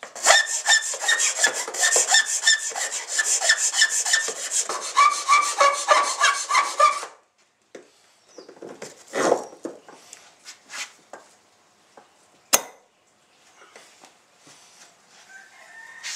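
Flat file rasping back and forth in rapid strokes through a slot in a jet ski's hull deck, a squeaky scrape, shaping the opening for a new cleat. The filing stops suddenly about seven seconds in, followed by a few light knocks and one sharp click.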